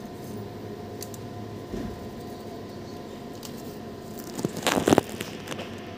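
Steady hum of lab equipment with a thin constant tone, and a brief cluster of sharp knocks and rattles about four and a half seconds in, as the small glass beaker is handled on the bench.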